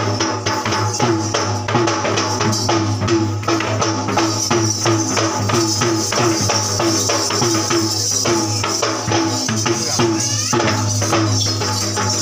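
Low-country yak bera drums played with the hands in a fast, steady rhythm, with a continuous metallic jingling over them.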